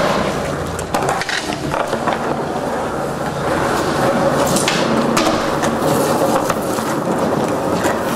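Skateboard wheels rolling over rough concrete, with several sharp clacks and knocks of the board during tricks.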